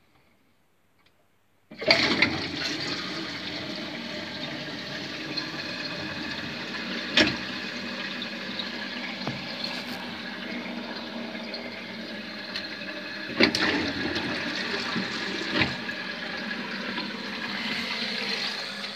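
Concealed toilet cistern flushing: a sudden rush of water starts about two seconds in and carries on steadily, with three sharp knocks along the way.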